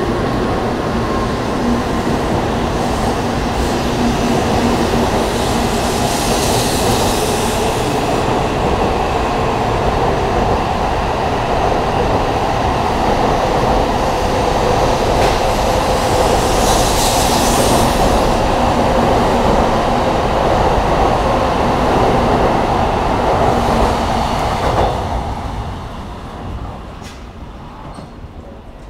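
N700-series Shinkansen pulling out of the station, its cars rushing past close by with a steady loud rumble and a faint hum, with two hissing surges about 6 and 17 seconds in. About 25 seconds in, the last car passes and the sound drops off quickly and fades into the distance.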